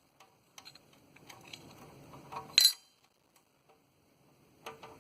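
Small metallic clicks and clinks of a screwdriver and screw against a desktop computer's sheet-metal case, scattered and irregular, with one sharper clink about two and a half seconds in.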